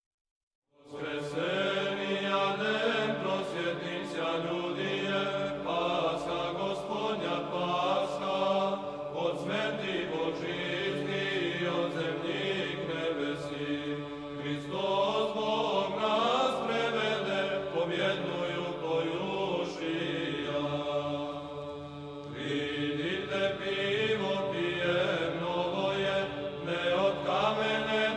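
Opening theme music in a chant-like style: a melody moving over a steady held drone, with light regular percussive ticks. It starts about a second in and dips briefly near the end before picking up again.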